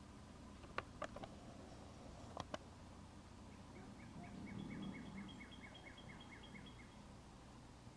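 Faint outdoor quiet broken by a few sharp clicks in the first seconds, then a bird calling a rapid run of short repeated notes, about five a second for some three seconds.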